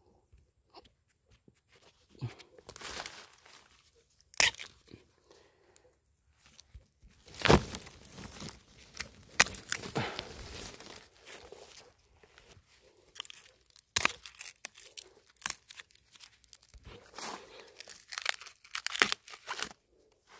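Wild bamboo shoots being snapped off by hand among dry bamboo stems and leaves: irregular crackling and tearing, broken by several sharp snaps. The loudest snap comes about seven and a half seconds in.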